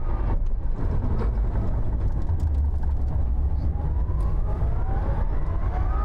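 Rimac Nevera's electric motors whining inside the cabin over a heavy road and tyre rumble, the whine rising steadily in pitch over the last couple of seconds as the car picks up speed.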